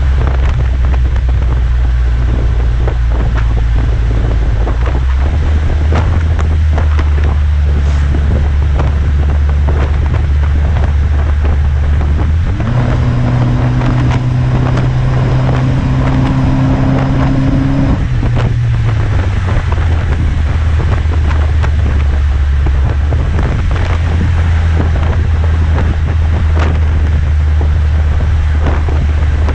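Chrysler PT Cruiser's four-cylinder engine running through a Gibson cat-back exhaust and JBA header, idling, then held at a steady higher rev for about six seconds near the middle before dropping back to idle. Wind buffets the microphone throughout.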